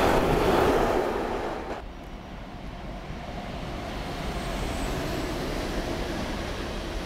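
Freight train of tank wagons passing close at speed, its wheels and wagons making a loud rush. The sound drops off sharply about two seconds in as the last wagon clears, leaving a quieter steady rumble.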